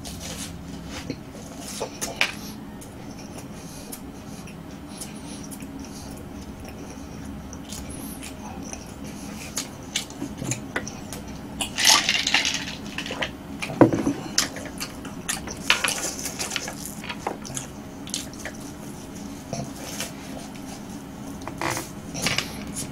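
Close-up chewing and crunching of crisp snack chips and cookie puffs, with scattered small crunches. Midway there are swallows of iced water from a glass, and a single loud knock about 14 seconds in, followed by more chewing.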